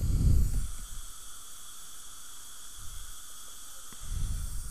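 Dental saliva ejector suction hissing steadily in the patient's mouth, with short low rumbles near the start and near the end.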